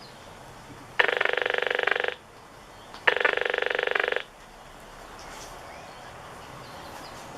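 An RF meter's audio-feedback speaker turning a phone's Wi-Fi scan into sound: two harsh buzzing bursts, each about a second long, about a second apart. Each burst is the phone's Wi-Fi radio searching for a network to connect to.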